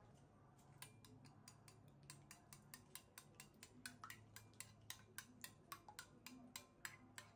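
A metal spoon beating raw eggs in a ceramic bowl, faintly clinking against the bowl in a quick, even rhythm of about four or five taps a second, starting about a second in.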